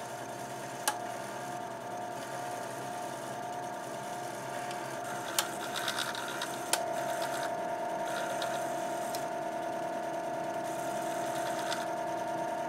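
HP 9122D floppy drives' head stepper motors buzzing with a steady, machine-like whine as the drives seek, with a few sharp clicks, the buzz growing louder about seven seconds in. The owner suspects the steppers are worn from years of gunk making the heads hard to move.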